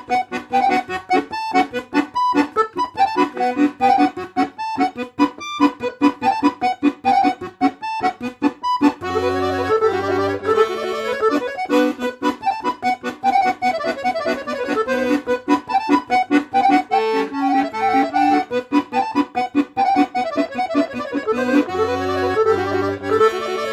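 Piano accordion played solo: a tune in B minor, quick detached right-hand notes at first, then about nine seconds in fuller, more held playing with the bass notes sounding under it.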